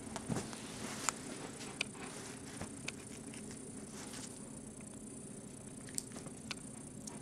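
Faint scattered light clicks and soft rustles from a young Bengal kitten playing on a bedspread near a wire wand toy, heard over a steady low hum.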